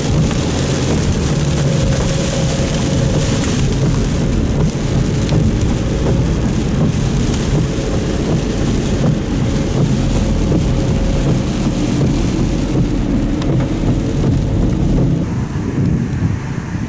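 Heavy thunderstorm rain falling hard over a steady deep rumble. The hiss of the rain eases off near the end.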